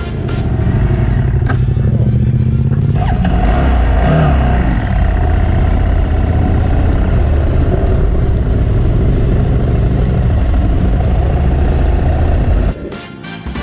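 Adventure motorcycle being ridden, its engine running under heavy, steady wind rush on the camera microphone, with a brief change in engine pitch about three to five seconds in. It cuts off suddenly near the end.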